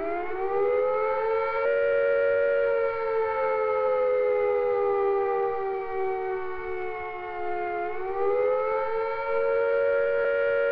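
Civil defence air-raid siren sounding the British air attack warning, the signal to take cover at once. Two close notes sound together; the pitch winds up during the first second or so, sags slowly, then rises again about eight seconds in and holds.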